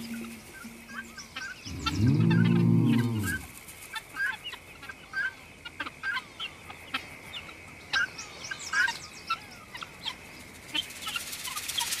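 Guinea fowl giving alarm calls: many short, harsh clucks and chattering notes repeated throughout, their reaction to a predator nearby. A low swelling music note sounds about two seconds in, over a steady high-pitched tone.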